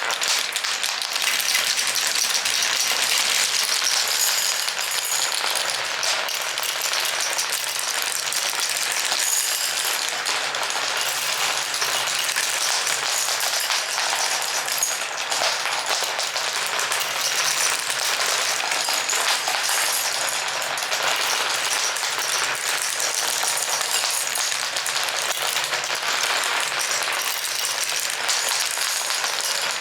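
Many glass marbles rolling and clicking against each other and the track of a marble run, a dense, continuous clatter.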